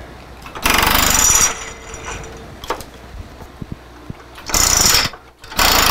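Milling machine's air-powered drawbar rattling in three short bursts, the first lasting nearly a second and two shorter ones near the end, as the spindle tool holder is released and the new one is drawn tight.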